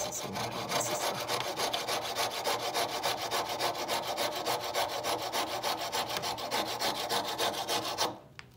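Coping saw cutting across a whittled wooden piece in quick, even rasping strokes, stopping abruptly about eight seconds in.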